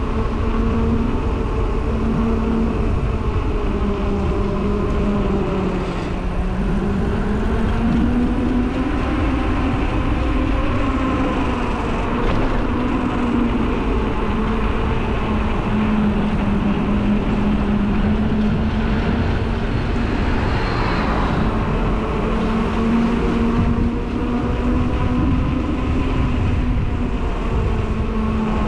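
Bicycle rolling along an asphalt road: a steady pitched hum that rises and falls slightly with speed, over low wind rumble on the microphone.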